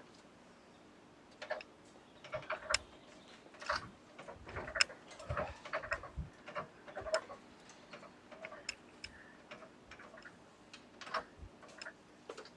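Tools and wheel hardware being handled: irregular light clicks and taps, busier in the middle, with a few dull knocks.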